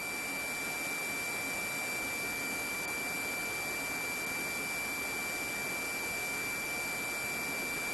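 Steady high-pitched electronic tone over an even hiss, unchanging throughout: noise on an open radio or intercom audio channel between transmissions.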